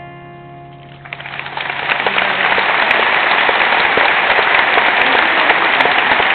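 An acoustic guitar's last chord rings and fades; about a second in, audience applause breaks out and swells within a second into loud, steady clapping.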